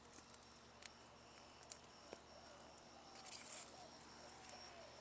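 Faint insects trilling in steady high tones, with a few soft clicks and a brief rustle about three and a half seconds in.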